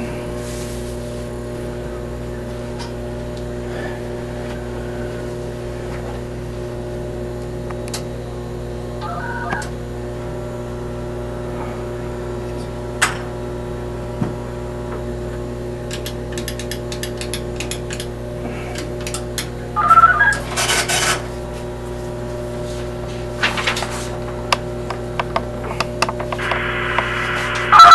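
Steady electrical hum from the radio console equipment, broken by scattered clicks. Short, loud bursts of tone and noise come about twenty seconds in and again at the very end.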